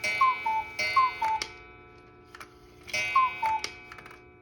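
Cuckoo clock sounding as its hands are turned past the hour: a gong strike rings out with each two-note falling cuckoo call, three times, with a longer pause before the third. The clock ticks quietly in between.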